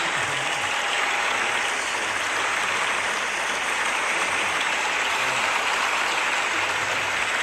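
Crowd applause: many people clapping together in a dense, steady stream that neither builds nor fades.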